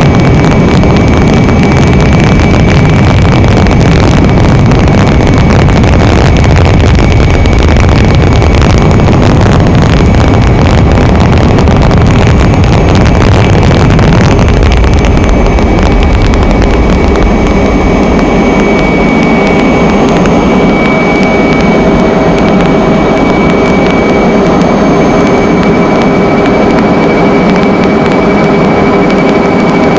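Aircraft engine noise heard on board: a loud, steady drone with a thin high whine over it. About halfway through the low rumble eases and steadier mid-pitched hums come forward.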